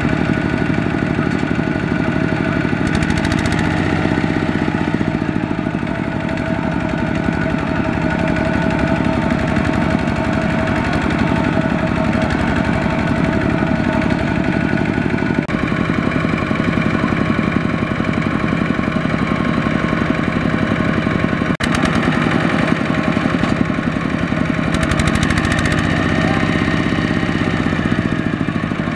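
Single-cylinder diesel engine of a two-wheel walking tractor running steadily under load as it drags a loaded trailer through deep mud. The engine note shifts about halfway through.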